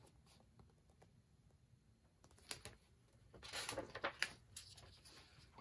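A picture book's paper page being turned: a few soft rustles and light taps from about halfway in, after a quiet start.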